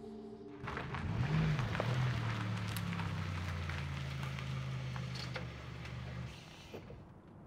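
Honda CR-V's four-cylinder engine running, with a brief rise in revs about a second in, then switched off suddenly about six seconds in.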